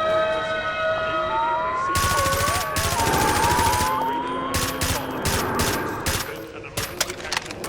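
Distorted emergency-broadcast-style audio: steady electronic tones, then a wavering, siren-like tone overlaid by harsh bursts of static or rapid cracking like gunfire.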